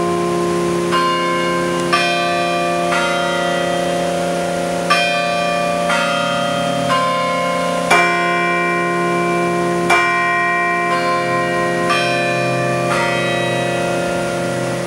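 Carillon bells of the Longwood Gardens Chime Tower playing a slow tune, about one note a second in phrases of three or four with short gaps, each bell ringing on under the next.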